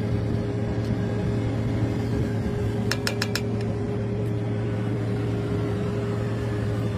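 A steady low machine hum, with four quick metallic clicks about three seconds in from a steel ladle tapping on the rim of the cooking pot.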